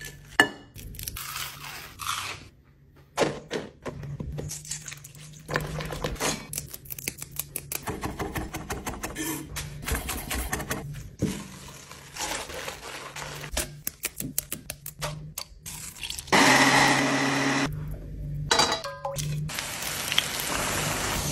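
Crisp onion bhajis crunching as they are torn apart by hand. Then a chef's knife slicing green chillies on a wooden board in quick taps. Near the end, battered onion sizzles in hot oil in a cast-iron pan, loudest about sixteen seconds in.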